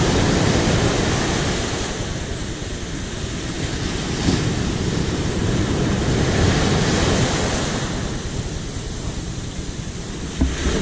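Heavy surf from a stormy sea breaking and washing ashore, with wind buffeting the microphone. The roar swells and eases: loudest near the start and again about six to seven seconds in.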